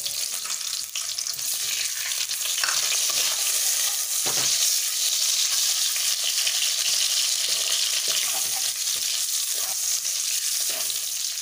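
Peeled hard-boiled eggs sizzling steadily as they fry in hot oil in a kadai. A wooden spatula knocks and scrapes against the pan a few times as the eggs are turned.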